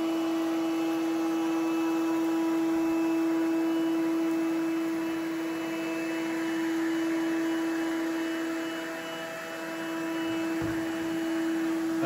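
Coral One robot vacuum running on turbo suction over carpet: a loud, steady, high-pitched fan whine over rushing air, briefly quieter about nine seconds in.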